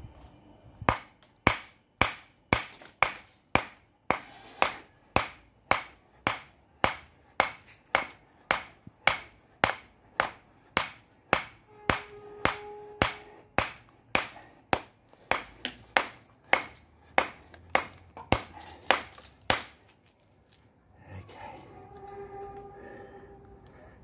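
24-ounce ball-peen hammer striking a quartzite boulder to spall it, sharp steel-on-stone hits about twice a second, knocking shards off. After some twenty seconds the blows stop.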